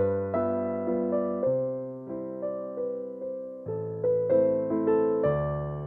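Background piano music: gentle keyboard notes and chords, each struck and left to fade.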